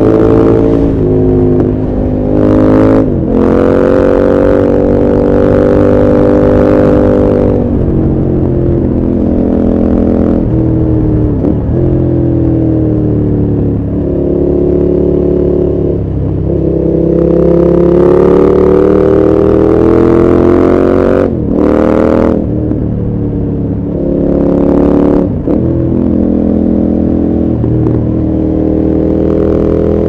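KTM 1190 Adventure R's V-twin engine, heard from the rider's seat as it pulls through the bends. The revs climb under throttle and drop back several times when the throttle closes or a gear changes.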